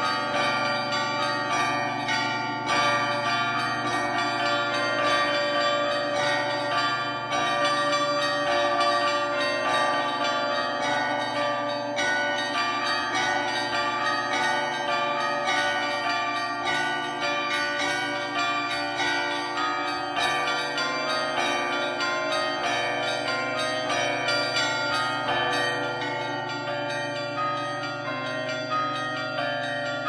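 A peal of church bells cast by Rudolf Perner's German foundry, rung by hand from ropes. Many bells strike in quick, overlapping rhythm while the lower bells ring on steadily underneath.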